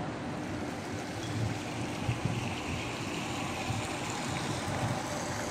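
Wind on the microphone: a steady rushing hiss with an uneven low rumble, no distinct events.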